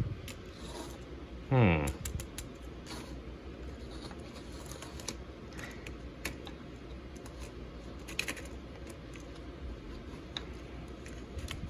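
Hard plastic toy parts of a Power Rangers Dino Fury Megazord clicking and knocking as they are handled and snapped into place, in scattered light clicks. About two seconds in, a brief voice-like sound falls steeply in pitch and is the loudest thing.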